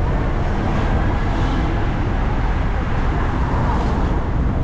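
Bolivian "micro" city bus running on the road: a steady mix of engine and road noise.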